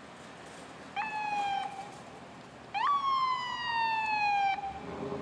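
LAFD rescue ambulance's electronic siren given two short blasts: a brief one about a second in, then a longer one that jumps up in pitch and slowly falls before cutting off.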